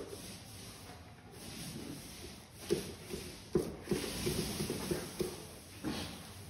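A paint roller being loaded in a metal paint bucket: a few sharp knocks of the roller against the bucket, then a short run of soft, closely spaced rattling clicks as it is worked in the paint.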